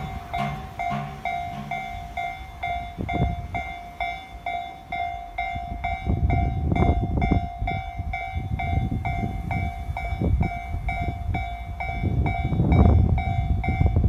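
Japanese level crossing bell, the Tobu Tojo-type electronic ding, repeating steadily at a couple of strokes a second. Beneath it a train's low rumble swells from about halfway through and again near the end.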